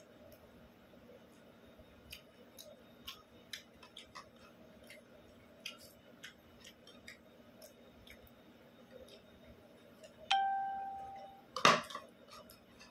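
Quiet eating by hand from a ceramic plate: scattered soft clicks and taps of fingers and food against the plate. About ten seconds in, a clear ringing tone starts suddenly and dies away over about a second. Just after it comes a short, loud clatter.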